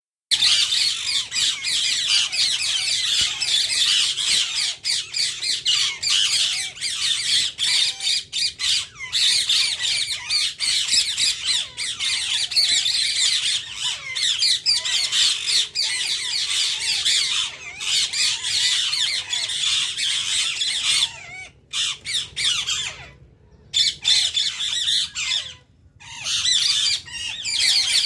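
Indian ring-necked parakeets (rose-ringed parakeets) calling in a dense, continuous run of shrill, rapid calls, with a few brief pauses in the last third.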